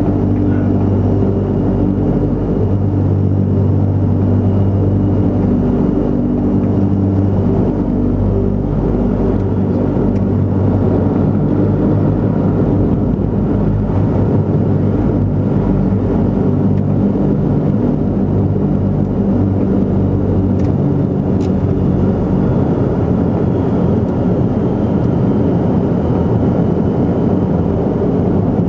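An Antonov An-22's four Kuznetsov NK-12 turboprops with contra-rotating propellers, heard inside the cockpit: a loud, steady drone with a low hum held at several fixed pitches.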